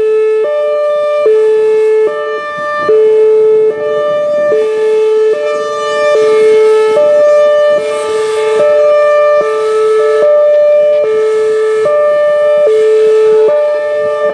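Whelen Vortex R4 electronic outdoor warning siren sounding its Hi-Lo signal: two tones, a low and a high, alternating about every 0.8 seconds, loud.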